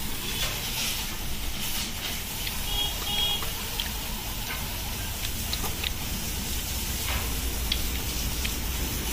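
Steady hiss of a high-pressure water jet spraying a motorcycle's body and wheel, with a low steady hum beneath it.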